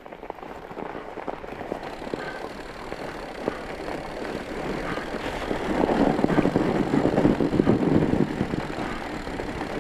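Fat bike with chained tires rolling over snow and ice: a dense crackling rattle of chain links and crunching snow that grows louder for a couple of seconds past the middle, then eases.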